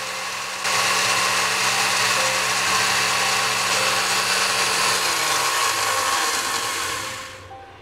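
Countertop electric blender running with its glass jar empty, the motor noise growing louder about half a second in. About five seconds in it is switched off and the motor winds down, falling in pitch until it stops.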